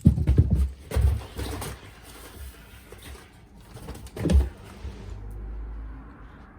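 Soft thumps and rustling of a cat playing with a ball of yarn, with heavier bumps right at the start, about a second in, and again about four seconds in.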